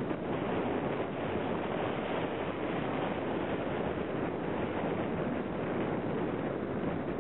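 Steady rushing noise from a moving cross-country skier: wind buffeting the microphone and skis sliding over the snow track.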